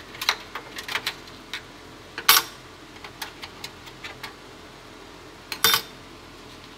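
Metal clicks and clatter from the sheet-steel case and rear expansion-slot parts of a small form factor desktop PC being handled, with two louder metallic clanks, one about two seconds in and one near the end.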